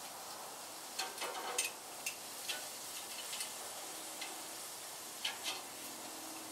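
Beef shish kebabs sizzling on a hot gas grill while they are turned with metal tongs: a steady hiss with scattered clicks of the tongs against the skewers and grate, bunched near the start and again about five seconds in.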